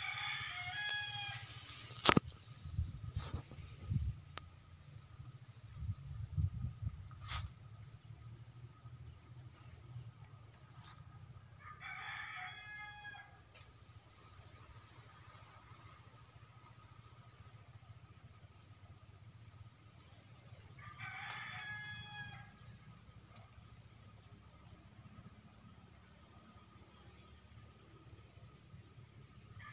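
A rooster crowing three times, about every nine to ten seconds. A few sharp knocks and low thumps come in the first seven seconds, the loudest about two seconds in, over a steady high hiss.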